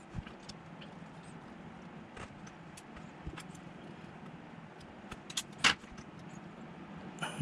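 Faint clicks and ticks of a precision screwdriver and tweezers working on the plastic and metal parts of a partly dismantled Sony Zeiss 24-70mm f4 lens barrel. A sharper cluster of clicks comes about five and a half seconds in.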